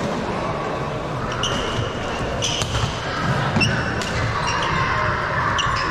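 Badminton shoes squeaking on the court floor in several short, high chirps as players shift their feet, over steady crowd chatter in a large hall, with a few sharp taps.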